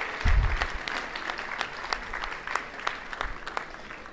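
Audience applauding: a room of guests clapping, thinning out toward the end, with a low thump just after the start.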